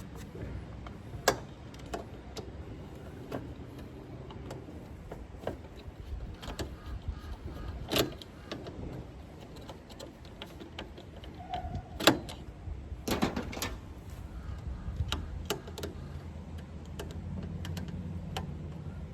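Scattered sharp clicks and knocks of hand work on parts and tools in an air-conditioning unit's control compartment, over a steady low rumble.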